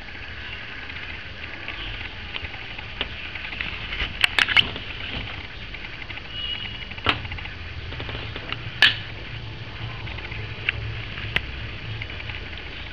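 Quiet shuffling and a few sharp clicks from a mother cat and her newborn kittens moving on cloth in a washing-machine drum: three quick clicks about four seconds in, single ones later. About six seconds in there is a brief thin high squeak.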